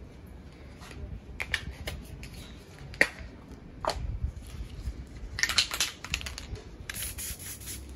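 Aerosol spray paint cans clicking and knocking as they are picked up and set down on a stone ledge, with a quick run of rattling clicks around the sixth second. Near the end a spray can starts to hiss.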